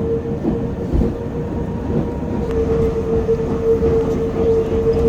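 Pilatus Railway rack railcar running slowly downhill, heard from inside the car: a steady rumble and rattle with a constant high whine over it.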